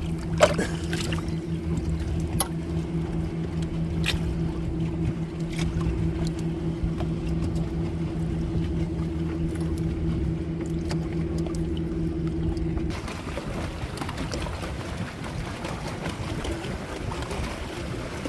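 A boat engine drones steadily with a pulsing low hum, with a few sharp clicks early on. About two-thirds of the way through the drone cuts off abruptly, leaving only a rushing noise of water and wind.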